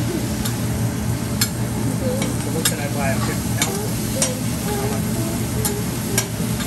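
Shrimp sizzling on a hot teppanyaki steel griddle while a metal spatula stirs and scrapes them, with a dozen or so sharp clacks of the spatula striking the plate at irregular intervals.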